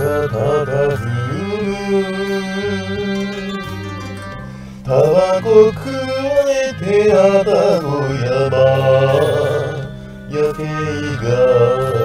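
Background music with a singing voice over instrumental accompaniment and a steady bass line.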